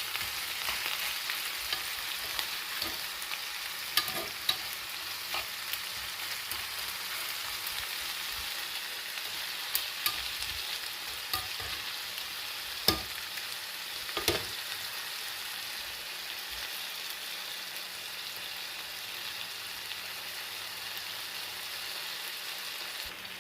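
Chicken thighs and onions sizzling steadily in a frying pan, the onions cooking down in the chicken's released juices. A few sharp knocks of a utensil against the pan come through the sizzle about 4, 10, 13 and 14 seconds in.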